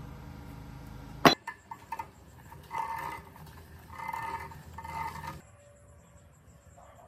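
Steel wrench working on the rusty pulley nut of an old air compressor pump: a steady low hum cuts off with one sharp metal clink just over a second in, then a few light clinks and three short ringing metal scrapes.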